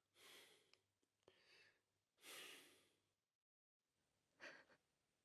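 Near silence with a few faint, short breaths or sighs from a person, the clearest about two seconds in. A moment of dead silence falls a little past the middle.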